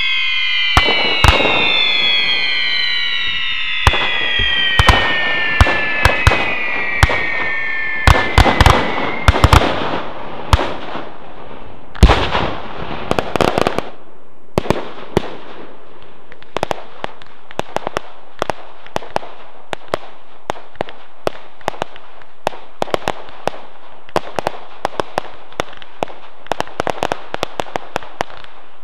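Fireworks display. Several whistles glide down in pitch over sharp bangs at first, then comes a dense run of loud reports, the loudest about twelve seconds in. After that, a long stretch of scattered short pops and crackles.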